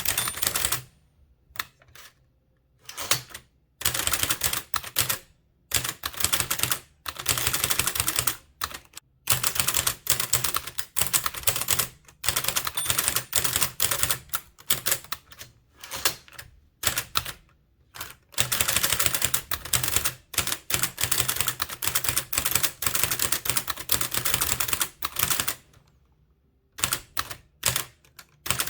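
Blickensderfer typewriter being typed on at speed: a quick run of keystrokes, each key with a long spring-loaded stroke working the type cylinder, striking several times a second. The bursts break off in short pauses here and there, the longest near the start and near the end.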